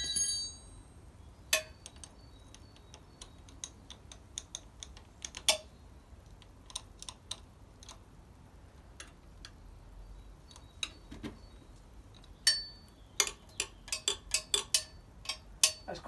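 Rear drive chain of a 1980 Harley-Davidson Ironhead Sportster being pushed up and down by hand to gauge its slack with the rider seated, giving scattered sharp metallic clicks and clinks. A brief metallic ring right at the start, and a quicker run of clicks over the last few seconds.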